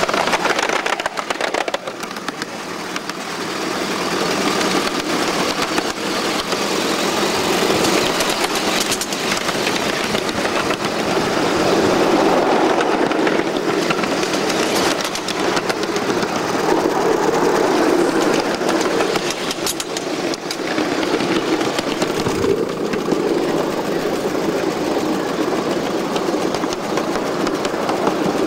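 Ridable live steam Shay, a geared locomotive, running along the track, heard from close aboard: a steady mix of its running noise and wheels on the rails, with a brief dip in loudness a couple of seconds in.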